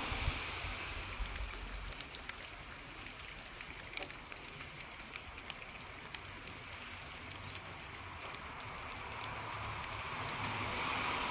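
Steady outdoor hiss like running water or light rain, with scattered faint ticks, swelling a little near the end. A low rumble sits under it in the first couple of seconds.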